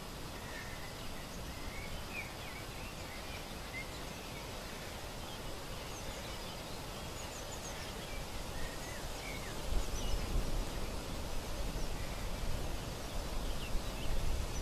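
Lakeside outdoor ambience: a steady hiss of background noise with small birds chirping now and then. From about ten seconds in, a gusty low rumble of wind on the microphone comes in and makes it louder.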